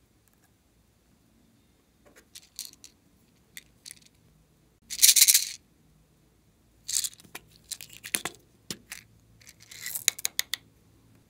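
Small plastic toy stationery handled by hand: scattered clicks and taps of plastic parts, with short rustling scrapes, the loudest about five seconds in, as caps and pieces are pulled off and small bits drop.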